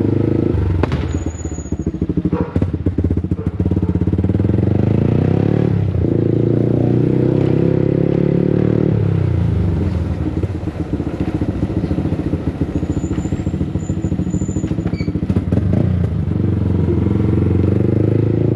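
Yamaha MT-15's single-cylinder engine running through an aftermarket Akrapovič exhaust while riding, its pitch climbing and falling several times as the throttle is opened and eased.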